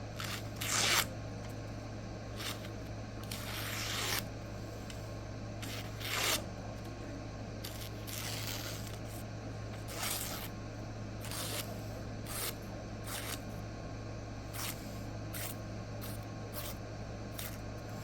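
Freshly sharpened knife edge slicing paper: a dozen or so irregular short rustling scrapes, a few drawn out to about a second, over a steady low hum.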